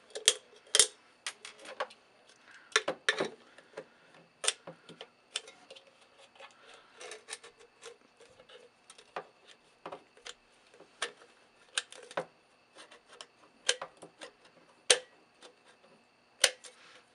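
Hand-held can opener clicking and crunching as its cutting wheel is worked into the top of an aluminium soda can, in sharp, irregular clicks about one or two a second.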